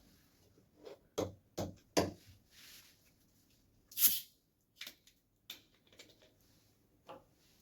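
Close-up eating sounds of a person eating noodles: a quick run of short, wet mouth clicks about a second in, a short hissing burst about four seconds in, then a few softer clicks.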